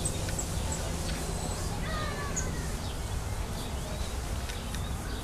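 Scattered short, high-pitched chirps from small animals, with a brief descending call about two seconds in, over a steady low hum.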